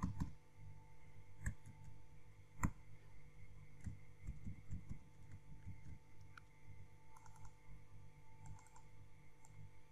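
Computer keyboard typing and mouse clicks, faint and scattered, with one sharper click a little under three seconds in and small flurries of key taps later on. A faint steady electrical hum runs underneath.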